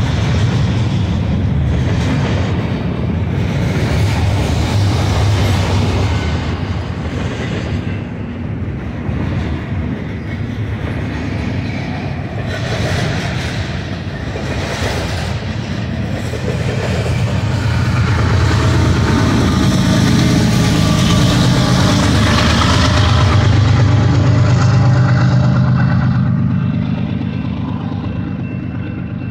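Double-stack intermodal freight train cars rolling past on the rail, a steady rumble with wheel clatter. The rumble swells again in the last third, with a steady whine over it.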